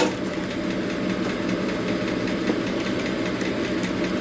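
A shop machine's motor running steadily with a low, even hum, with a click right at the start.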